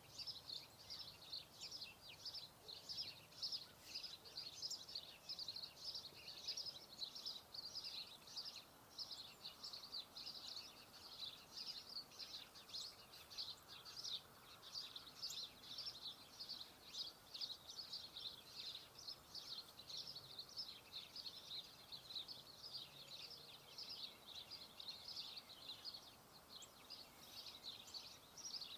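Small birds chirping continuously in the background: many quick, high chirps, several a second, faint against a quiet outdoor hush.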